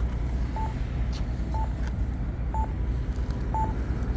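A Campbell AGPS accessible pedestrian signal push button ticking out its locator tone: a short beep about once a second, marking where the button is while the signal is on wait. Steady traffic rumble runs underneath.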